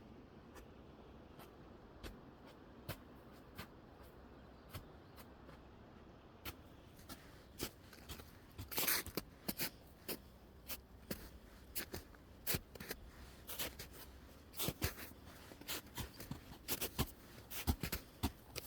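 Irregular sharp clicks and ticks over a low background hiss, sparse at first and coming much more often from about a third of the way in.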